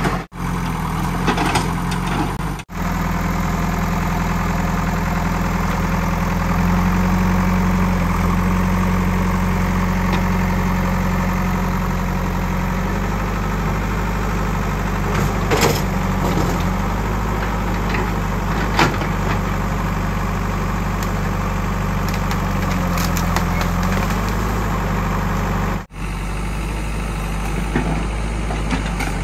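JCB 3DX backhoe loader's Kirloskar diesel engine running steadily while the backhoe digs, its note shifting up and down a few times as the hydraulics take load. A few sharp knocks sound around the middle, and the sound breaks off briefly near the start and near the end.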